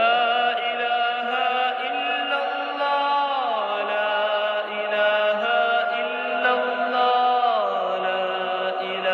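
Background music of a slow, drawn-out chant: long held notes that slide down in pitch twice.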